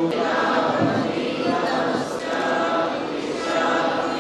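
Many voices chanting a prayer together in unison.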